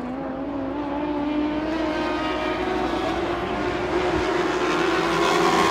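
Lightning sprint car engines running at high revs as the cars race around the track, the engine note rising slowly in pitch and getting louder toward the end.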